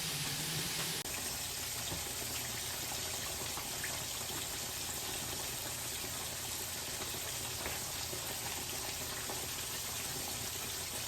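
Food cooking in a pan on the stovetop, a steady sizzling hiss that keeps on without a break; it drops slightly about a second in.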